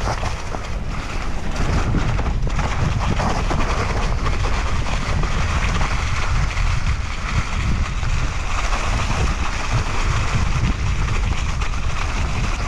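Mountain bike rolling downhill over a thick layer of dry fallen leaves: steady tyre crunch and rustle under heavy wind buffeting on the action-camera microphone, with a few brief knocks from the bike over bumps.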